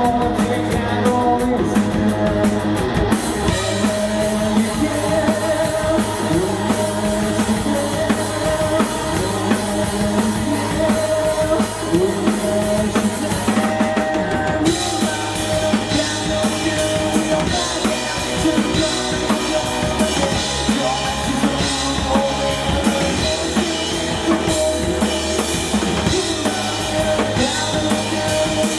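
Rock band playing live with a close, prominent drum kit: kick drum and snare hits drive a steady beat over the other instruments.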